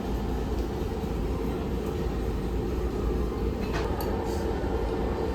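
Steady low rumble and hum of a vehicle in motion, with a short rising whine nearly four seconds in.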